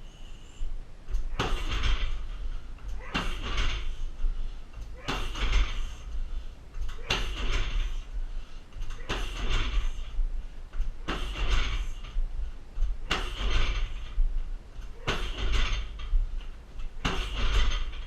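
Roundhouse kicks striking a heavy 60 kg punching bag: nine hard thuds, evenly spaced about two seconds apart, each trailing off briefly.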